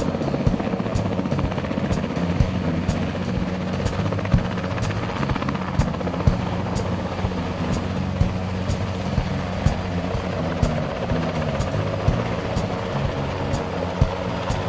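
A Sikorsky S-58 heavy-lift helicopter lifting off and climbing away, its rotor beating steadily over the engine noise.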